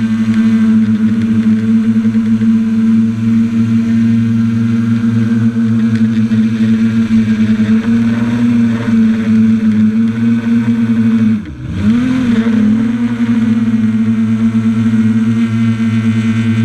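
A drone's electric motors and propellers running in flight with a steady, loud buzzing hum. About two-thirds of the way through, the pitch dips sharply and climbs straight back up.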